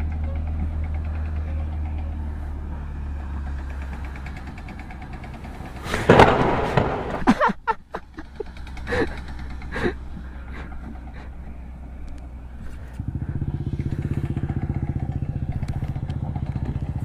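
Motorcycle engine idling steadily, with a loud burst of clattering knocks about six to eight seconds in. About thirteen seconds in, the engine note changes to a stronger, evenly pulsing idle.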